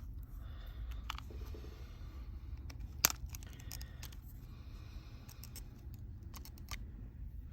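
Light clicks and taps of small metal tools and parts as a smartphone is taken apart, with one sharper click about three seconds in, over a low steady hum.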